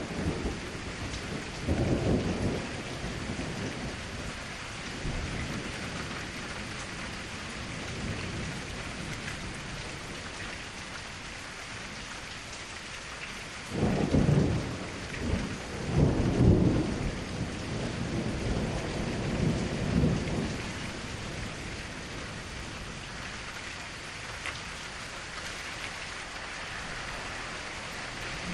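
Steady rain falling, a constant hiss, with rolls of thunder: a rumble about two seconds in and a stronger run of rumbles a little before and after the middle.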